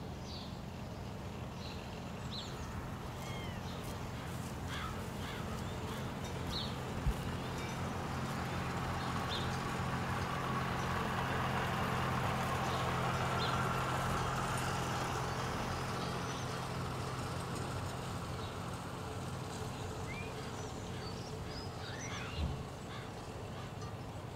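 Ambient outdoor soundscape: birds calling with short chirps over a steady low hum. A broad rushing noise swells and fades over about ten seconds in the middle, and there are two single thumps, about seven seconds in and near the end.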